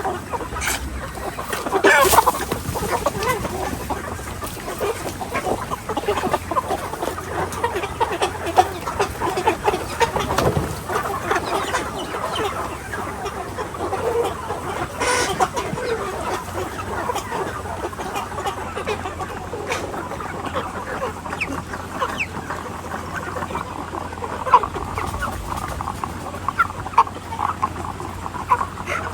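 A flock of chickens clucking, many birds calling over one another without a break, with a few sharp knocks among them.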